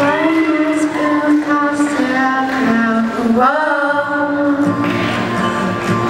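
Girls' voices singing long held notes in harmony through microphones, over an acoustic guitar. The voices slide up in pitch about three and a half seconds in, and lower notes come in just after.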